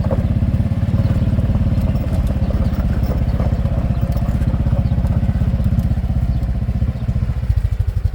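Small engine of a farm runabout running steadily with a rapid, even putter. Near the end the firing slows and turns uneven as the engine drops back toward idle.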